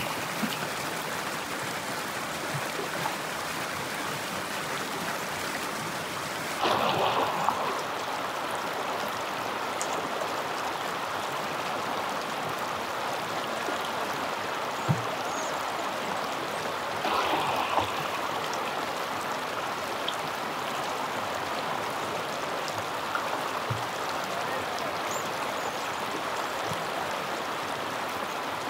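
Shallow stream rushing over rock slabs right by the microphone, a steady watery rush. It swells louder for about a second twice, around seven and seventeen seconds in, and a single sharp click sounds around fifteen seconds in.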